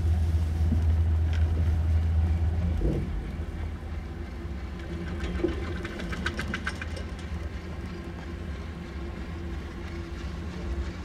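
Riding a ski chairlift: a steady low hum that drops away about three seconds in, leaving a quieter running noise with a brief rapid clatter about six seconds in.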